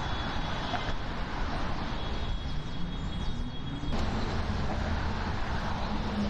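City street traffic: a steady hum of engines and tyres, with one vehicle's engine rising in pitch as it pulls away. The sound changes abruptly about four seconds in.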